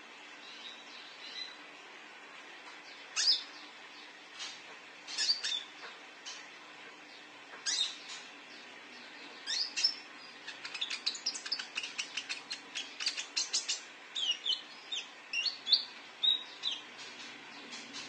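Konin (kolibri ninja) sunbird calling: sharp, high chirps, scattered at first, then a fast run of chirps from about ten seconds in, and a few varied sliding notes near the end.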